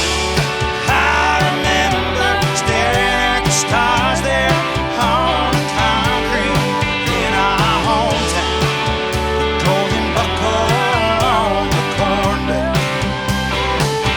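Live rock band playing, with drums keeping a steady beat under bass and guitars and a lead melody that bends and wavers in pitch.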